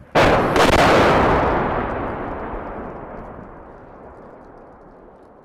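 An explosion: two sharp blasts about half a second apart, followed by a long rolling rumble that fades away over about four seconds.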